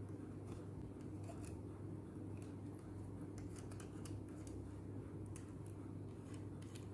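Faint small clicks and scrapes of a wire's metal fork connector being fastened under the terminal knob of a plastic bulb holder, over a steady low hum.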